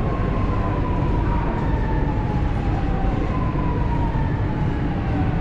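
Chennai Metro train running, heard from inside the carriage: a steady rumble with a motor whine that falls slowly in pitch as the train slows.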